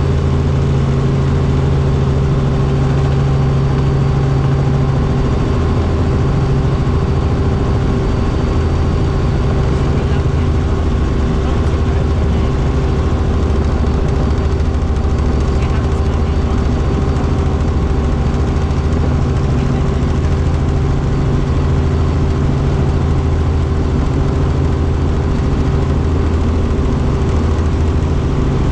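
Helicopter engine and rotor drone heard from inside the cabin in cruising flight: loud and steady, a low hum with a few higher steady tones over it.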